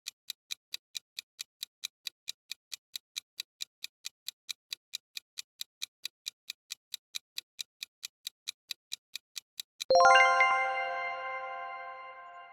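Countdown timer sound effect: clock-like ticks, about four a second for ten seconds. They end in a bright bell chime that rings on and slowly fades, marking that the time is up.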